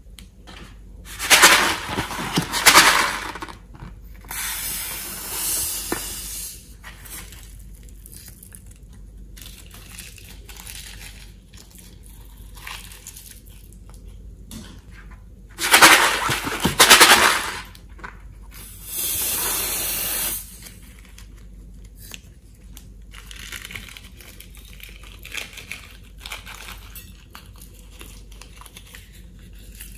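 Confetti sequins rattling in a small plastic shaker as they are shaken out onto slime, in four loud spells with quieter rustling between.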